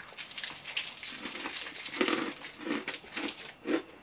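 Chewing and crunching of a Cadbury Crunchie bar: dense crisp crackles of the chocolate-coated honeycomb breaking between the teeth, with soft chewing sounds about every half second from a second in.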